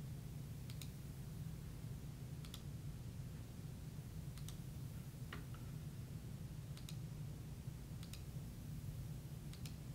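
A computer mouse button clicked about seven times, a second or two apart, over a low steady hum.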